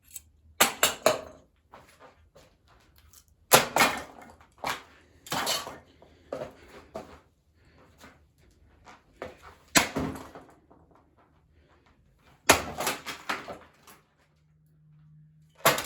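A ceiling fan light kit being smashed: about eight separate heavy blows, each followed by a short clatter of breaking and rattling parts, with pauses of a second or more between them.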